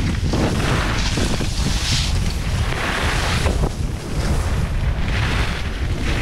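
Wind rushing over the microphone while skiing downhill, with ski edges hissing and scraping across packed snow in swells that come every second or two as the skier turns.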